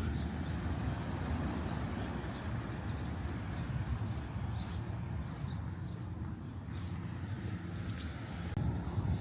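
Birds chirping in short high calls, mostly from about four to eight seconds in, over a steady low rumble.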